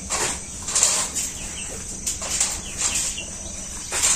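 Nylon mesh of a hanging net cage rustling and scraping in short bursts as it is handled and adjusted, with faint bird chirps behind.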